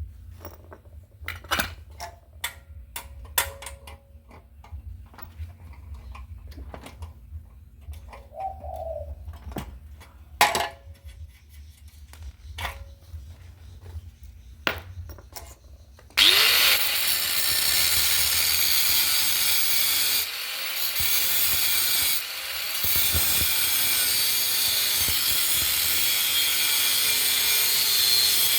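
Scattered clicks and knocks of metal parts and tools being handled, then about halfway through a handheld electric power tool starts suddenly and runs loud on a steel part, cutting out briefly twice before carrying on.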